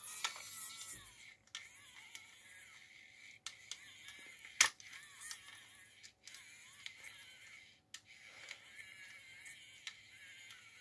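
Small N20 worm-gear motor whining faintly as it slowly turns a 3D-printed scotch yoke crank to curl an RC excavator bucket, with scattered light clicks and one sharp click about four and a half seconds in. The motor is underpowered: at 10 volts it only has the mechanism half working.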